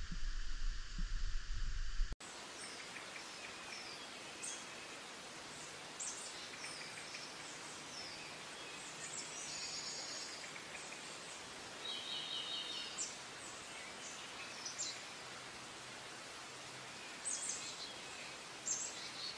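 A deep, droning sound for the first two seconds cuts off abruptly, giving way to a steady, even hiss of outdoor forest ambience with small birds chirping now and then.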